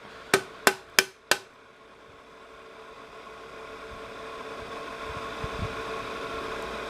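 Four sharp clicks in quick succession from the Panasonic AG-450 S-VHS camcorder being operated, then a steady hiss with a faint hum that slowly grows louder.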